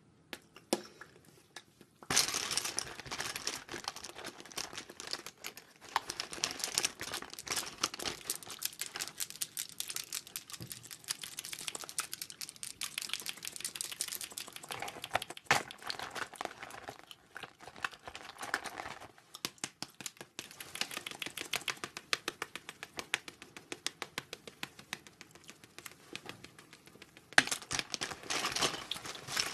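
Close-up ASMR crinkling of plastic wrappers and packaging, mixed with rapid crisp clicking and tapping of small cosmetic items. It starts about two seconds in and grows louder again near the end.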